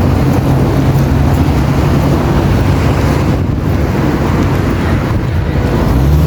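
Steady low rumble of street traffic, loud and unbroken.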